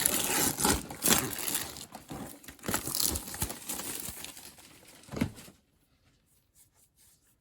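Toy-box packaging being torn open and handled: dense crinkling and tearing for about five seconds, with a sharper crack near the end, then only a few faint ticks.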